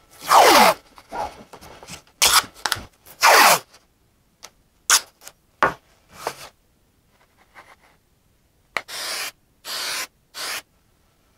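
Blue painter's tape pulled off the roll in long rasping strips and torn, with a few light ticks as it is pressed down. Near the end come three short hisses from an aerosol can of CA-glue accelerator.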